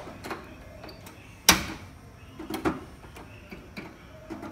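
Kitchen utensils knocking and clattering at the stove: one loud sharp knock about a second and a half in, with lighter clicks and knocks scattered around it.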